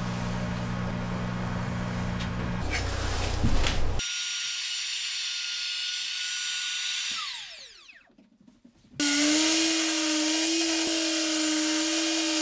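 A steady low hum for the first few seconds, then a Makita RT50D cordless trim router running with a high whine; its pitch falls as it is switched off and spins down. After a second of quiet, a HiKOKI C6MB4 circular saw mounted under a table starts and runs steadily.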